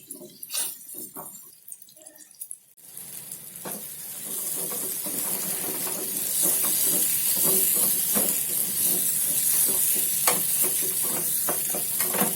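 Ginger paste with ajwain and turmeric frying in ghee in a small tadka pan: a sizzle that sets in about three seconds in and grows louder, with a spoon clicking and scraping against the pan as the mixture is stirred. It is being cooked until the ghee separates from the paste.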